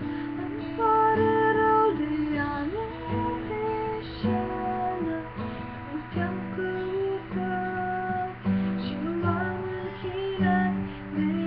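A woman singing a slow song while strumming chords on an acoustic guitar.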